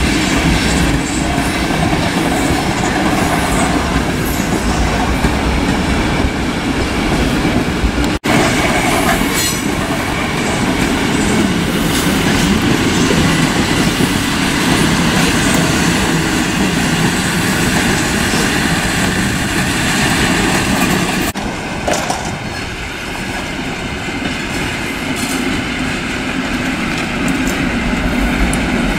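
Passenger train rolling past close by, a steady loud rumble of wheels on rail from PKP Intercity coaches. The sound breaks off sharply about eight seconds in, then carries on, and turns somewhat quieter about twenty-one seconds in.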